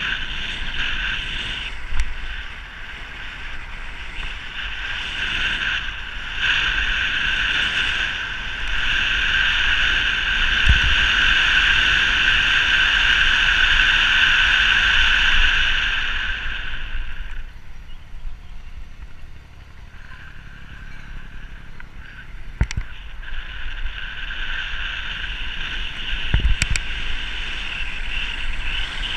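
Steady rush of wind over the camera microphone while riding downhill at speed, mixed with road noise. It eases off about two-thirds of the way through and builds again near the end, with two sharp knocks in between.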